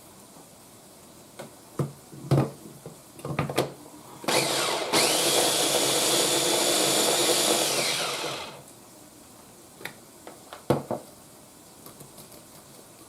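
Small Ninja electric chopper blending pinto beans in one burst of about four seconds, starting about four seconds in and winding down as it is switched off. A few knocks before it and a few light clicks after it come from the chopper being handled.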